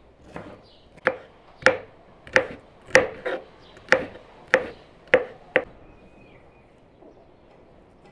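Kitchen knife chopping green bell pepper on a wooden cutting board: about nine sharp chops at a steady pace, stopping a little past halfway.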